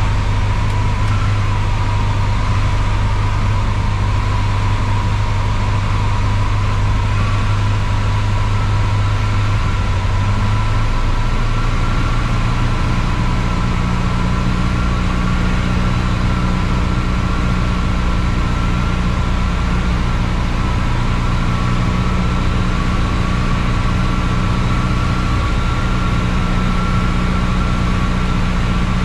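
Cockpit noise of an Embraer Tupi's four-cylinder Lycoming piston engine and propeller running steadily during a landing approach. The engine note shifts about ten seconds in.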